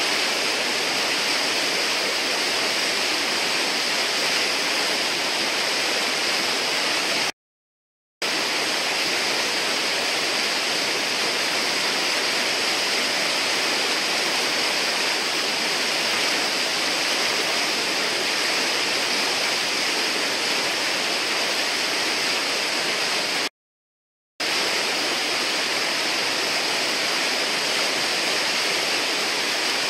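Whitewater pouring over a river ledge: a steady rushing of water that drops out to silence twice, for about a second each time.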